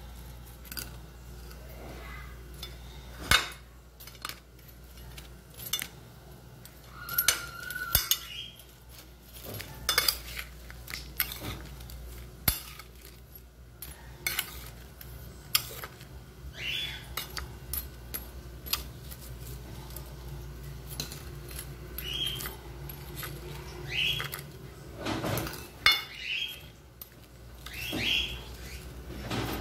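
A metal spoon clinking, knocking and scraping against dishes at irregular intervals while fried dough balls are rolled in sugar, over a low steady hum.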